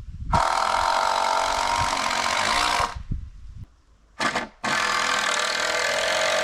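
Power drill running in three trigger pulls: a run of about two and a half seconds, a short blip about four seconds in, then a longer steady run.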